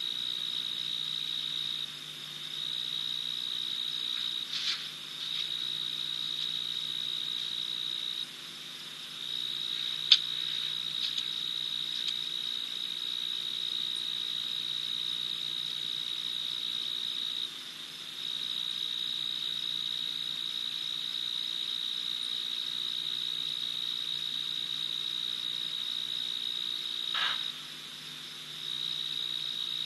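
A cricket trilling steadily at a high pitch, breaking off briefly four times. A sharp click about ten seconds in, and a short sound falling in pitch near the end.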